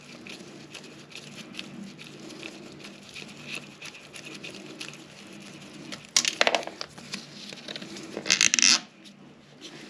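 Small metallic clicks and scrapes as a gloved hand turns the nut off a toilet's floor bolt and slides off its washers. There are two louder scrapes, about six and eight and a half seconds in.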